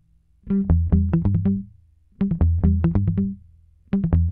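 Background music: a bass-heavy riff played in short phrases of about a second and a half, each a run of quick repeated notes, broken by brief pauses.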